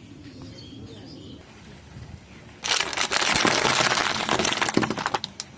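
A car tyre rolls over and crushes crunchy objects: a sudden loud, dense crackling crunch starts about two and a half seconds in and lasts about three seconds, after a faint low hum.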